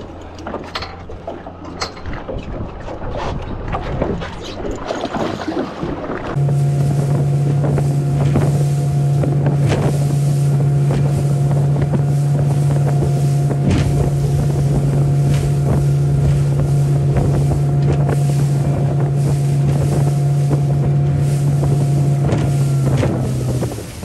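Wind and water noise for about six seconds, then a small boat's engine running steadily at speed, a strong low hum with wind buffeting the microphone and water rushing past. The engine cuts off abruptly just before the end.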